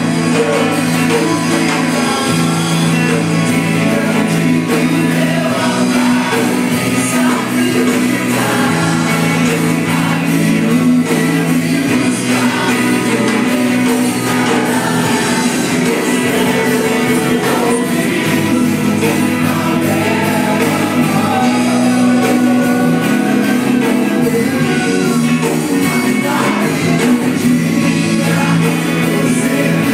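Live Christian worship music: a group of voices singing together over instruments holding long, steady low notes.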